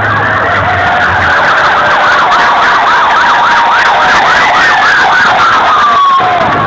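Several police vehicle sirens sounding together as they pass, a slow wail overlapping a fast warbling yelp, with one tone sliding down in pitch toward the end as a vehicle moves away. A crowd cheers and claps underneath.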